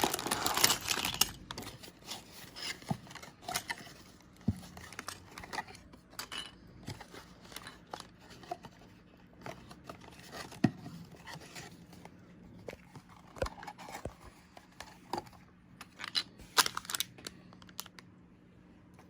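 Small LEGO cardboard box being torn open and its packaging handled: tearing and crinkling, loudest in the first second or so, then scattered light clicks and rustles.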